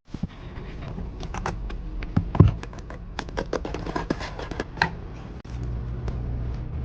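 Small hand tools being handled: a quick, irregular run of light clicks and taps, with a louder knock about two and a half seconds in. A low steady hum comes in after about five and a half seconds.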